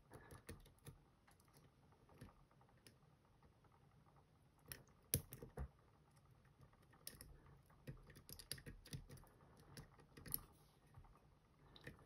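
Faint, scattered small clicks of a thin steel pick working the pins of a Van Lock padlock, a tubular-style lock held under tension by C-clip pliers. The clicks are irregular, a little stronger about five seconds in.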